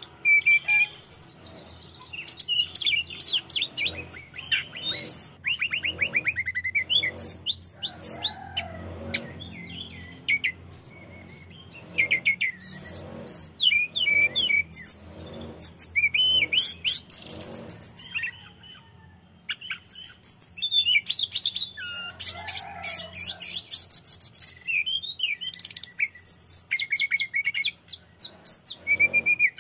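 Male tledekan gunung (hill blue flycatcher) singing a loud, varied song of rapid high whistles, trills and chattering sweeps in short phrases, with a short pause about two-thirds of the way through.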